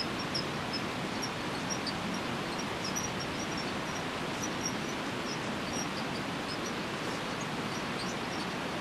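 Outdoor garden ambience: a steady rushing background noise with faint, scattered high chirps throughout.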